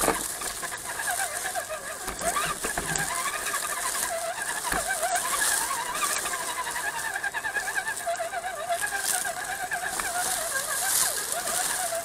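Redcat Gen7 RC crawler's electric motor and gear drivetrain whining steadily, the pitch wavering constantly as the throttle and load change over rough ground, with a few brief knocks from the truck bumping over rocks.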